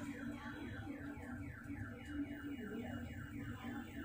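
Electronic alarm sounding: a quick falling chirp repeated about five times a second, over a low steady hum.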